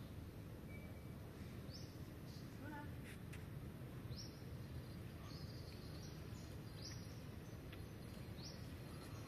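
A small bird calling: short, high chirps that sweep upward, repeated every second or so, over steady background noise.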